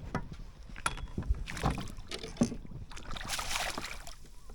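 Knocks and handling sounds on a small fishing boat, with a brief rush of noise about three seconds in.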